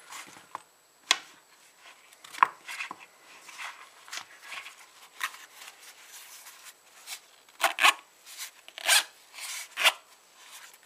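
A fabric checkbook wallet being handled and folded shut, with rustling and scraping and a few sharp clicks. Near the end its zipper is pulled closed in several quick strokes.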